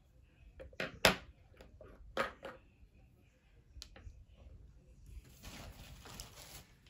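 Sharp clicks and taps of small plastic lip-product tubes being handled and set down, the loudest about a second in, followed by soft rustling from about five seconds in as a hand reaches for the next item.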